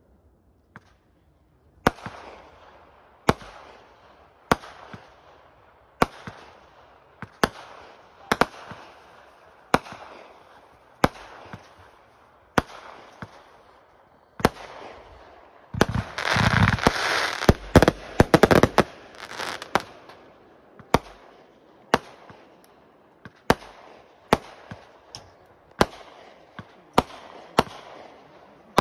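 Aerial fireworks bursting overhead, starting about two seconds in: a sharp bang about every second and a half, each trailing off into crackle. About halfway through comes a dense stretch of rapid crackling bangs lasting about three seconds.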